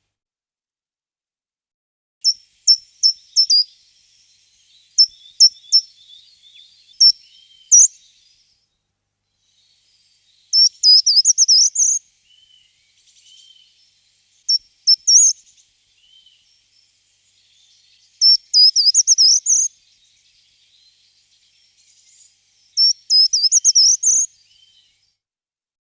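A small songbird calling and singing in high, thin notes. First come a run of sharp separate calls, then short quick twittering phrases of about a second each, repeated several times with pauses between them.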